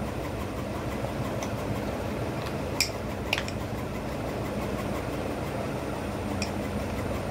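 Steady background room noise with a low hum, broken by a few faint light clicks.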